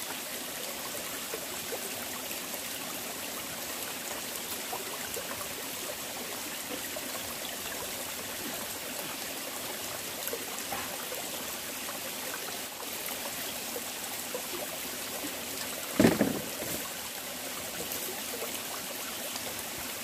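Shallow mountain stream running steadily over rocks, a constant babble and trickle of water. A brief louder sound cuts in about sixteen seconds in.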